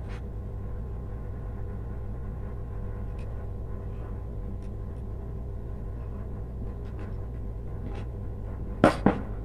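A steady low background hum, with scattered faint clicks and two sharp knocks near the end from wires and plastic lamp-holder and switch parts being handled.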